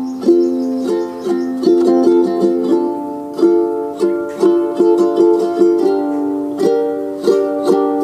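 Background music: a plucked-string tune with notes picked in quick succession, each ringing briefly and fading.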